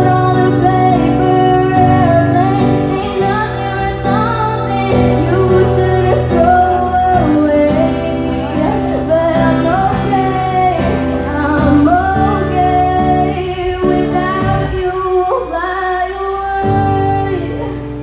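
A female singer performing a song live with guitar accompaniment, amplified through a PA. The low accompaniment drops out briefly near the end.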